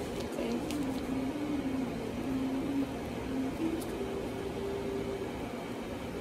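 Steady room hum with a faint, low melody of held notes that step up and down in pitch.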